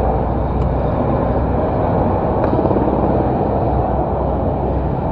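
Steady low vehicle rumble, with a couple of faint clicks while the scooter's under-seat storage is opened.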